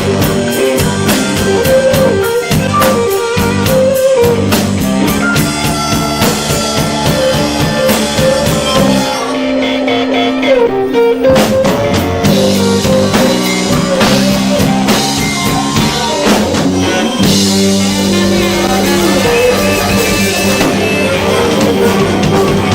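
Rock band playing loudly, with guitar, bass and drum kit. About nine seconds in the drums drop out for roughly two seconds under a held note, then the full band comes back in.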